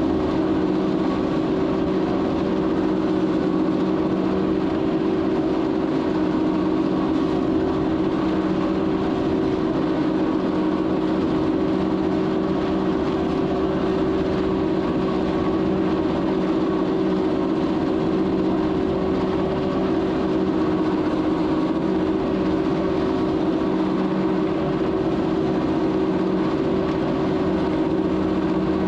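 Swaraj 969 tractor engine running steadily at constant revs, driving a four-row silage cutter off the PTO through maize, with a steady hum and the churning noise of the cutter.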